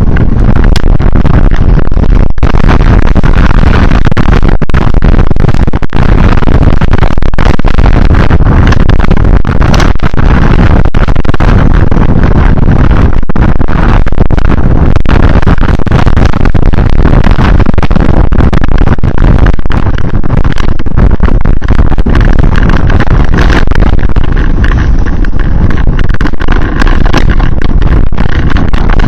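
Loud, steady travel noise of a vehicle on the move, with wind and road noise heaviest in the low end.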